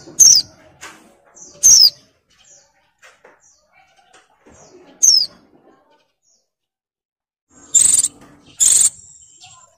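Female white-eye (pleci) in breeding condition calling: short, sharp high notes that slide downward, three spread over the first five seconds, then two louder, harsher calls close together near the end.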